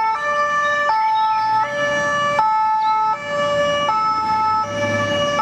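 Swiss ambulance's two-tone siren, stepping back and forth between a low and a high note, each held for about three-quarters of a second. A low engine rumble swells near the end as the vehicle passes.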